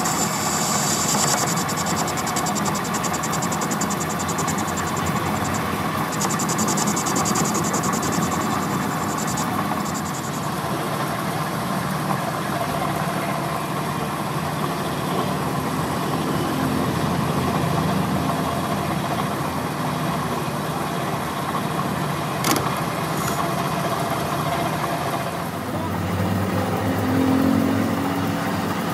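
Metal lathe running steadily while machining a spinning shaft. For roughly the first ten seconds a high hiss comes from the tool bit cutting the end of the metal. Later a tailstock drill chuck drills into the end of the part; there is one sharp click about 22 seconds in, and a deeper hum comes in near the end.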